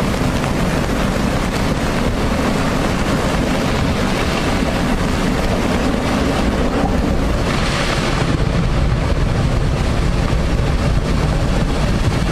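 Steady loud rush of floodwater, with wind buffeting the microphone into a low rumble.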